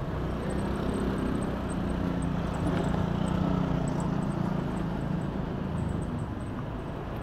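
Steady vehicle noise from moving through traffic: a low engine hum with road noise, swelling a little in the middle.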